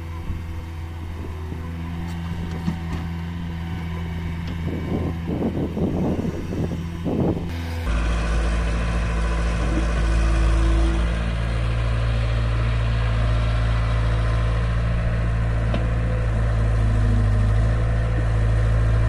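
Diesel engines of a tracked excavator and a farm tractor running steadily while the excavator digs soil and loads it into the tractor's trolley, with some clatter a few seconds in. About eight seconds in, the sound cuts to a louder, deeper engine drone.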